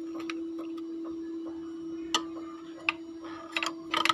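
Sharp plastic clicks and taps of the white front cover being fitted and snapped shut on a Wiki FN10-4D mini overlocker: a few single clicks in the second half, then a quick cluster near the end, the loudest of all. A steady hum runs underneath.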